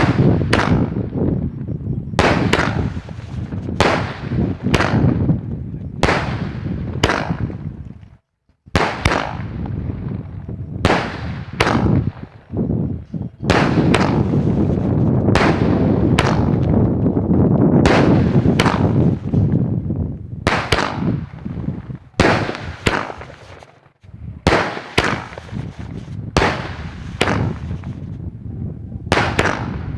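Skyshot fireworks firing in a rapid series, with sharp bangs about once a second and dense crackling between them, and two brief lulls, about 8 and 24 seconds in.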